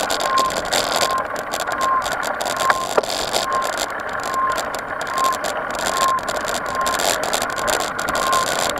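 Mountain bike rolling over a dirt trail, heard from a camera mounted on the bike or rider: steady tyre and wind noise with a constant rattle over the rough ground. A short squeak repeats about once a second. Two sharp clicks come about three seconds in.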